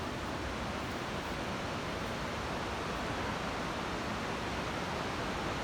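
Steady rush of the fast-flowing Coquihalla River, an even wash of water noise without breaks.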